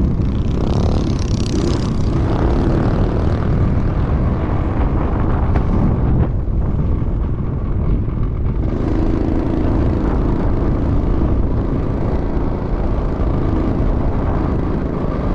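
Minibike's small engine running steadily at speed, heard onboard, with heavy wind rumble on the microphone.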